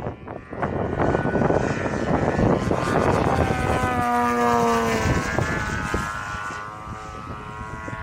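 Desert Aircraft DA-70 twin-cylinder two-stroke petrol engine of a large aerobatic RC plane running in flight, its pitch sliding down about halfway through and the sound growing quieter near the end.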